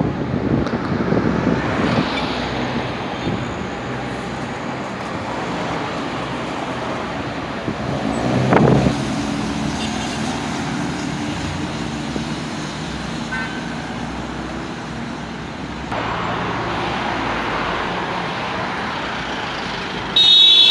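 Road traffic passing on a roadway: a continuous wash of vehicles driving by, with one vehicle passing close and loud about eight or nine seconds in.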